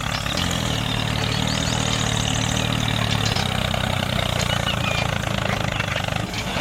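Tractor engine idling steadily, with a few faint high chirps over it.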